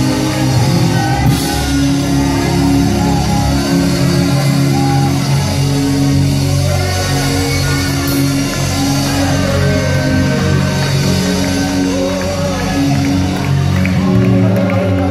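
Live worship band music in a large hall, with sustained chords over a steady bass line.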